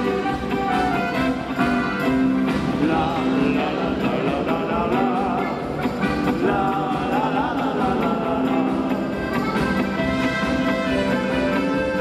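A German folk (Volksmusik) band playing live, with accordion, trumpet and electronic keyboards over a steady beat.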